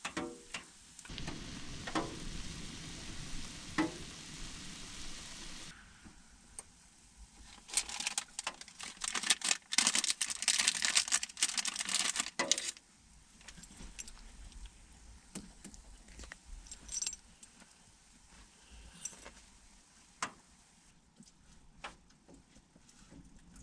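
A steady hiss with a few clicks for several seconds, then about five seconds of loud metallic clinking and rattling, like keys or small metal items being handled, then scattered soft clicks.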